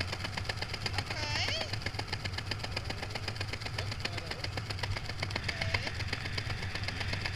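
An engine running steadily at idle, with a constant low hum and fast, even firing pulses. A voice is heard briefly about a second in.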